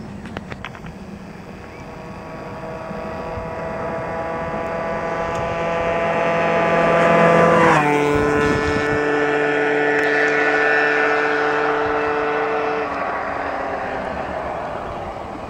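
Tuned MBK Nitro two-stroke scooter at full speed, passing by: its high, steady engine note grows louder as it approaches, drops sharply in pitch as it goes past about eight seconds in, then fades away.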